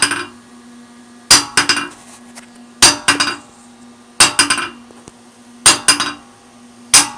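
Hammer striking an anvil that sits unsecured on a welded steel square-tube stand: groups of two or three ringing blows about every second and a half, with a faint steady hum lingering between them. A noise test of the stand, which comes out not bad.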